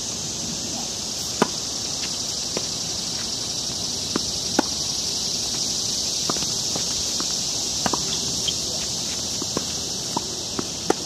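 A tennis rally on a hard court: sharp pops of the ball coming off the rackets and bouncing on the court, with scuffs of footsteps, several strong hits among them. Under it, a steady high-pitched drone of insects.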